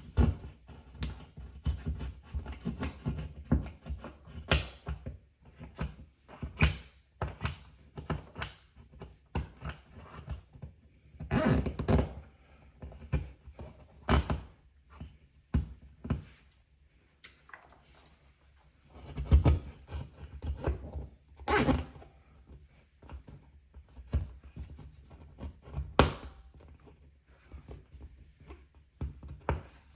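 Irregular knocks, clunks and clicks from handling work, with a few short, louder scraping or rustling bursts.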